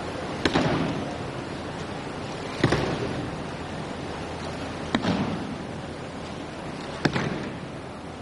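Four sharp slaps about two seconds apart, each with a short echoing tail, over a steady hiss: breakfalls on the tatami as aikido partners are thrown.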